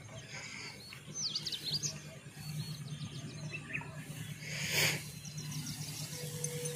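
Small birds chirping in quick clusters of short sliding calls, several times, over a low steady hum. A brief hiss-like rustle about five seconds in.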